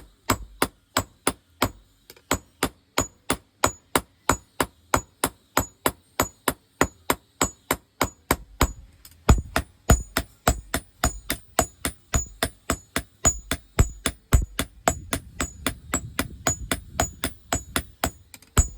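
Hammer blows on hot steel at the anvil, forging a machete blade, in a steady rhythm of about three strikes a second with a short bright ring on each. From about halfway through, the blows also land with heavier, deeper thuds.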